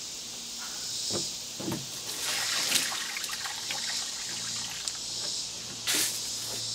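Water poured from a plastic bucket onto the soil of a potted fig tree, splashing and trickling in surges that are strongest about two seconds in and again near the end.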